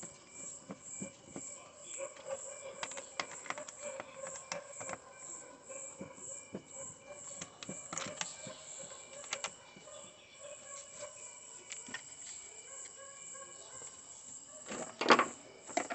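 Light scattered clicks and taps of small metal and plastic contactor parts being handled and fitted together during reassembly, with a louder cluster of clicks near the end. A faint high chirp pulses steadily in the background.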